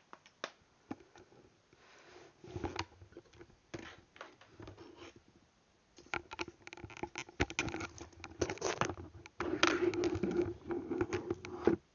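Handling noise close to the microphone: clicks, scrapes and rubbing as small gear is picked up and moved on a desk. It is sparse at first, grows denser and louder from about six seconds in, and cuts off suddenly just before the end.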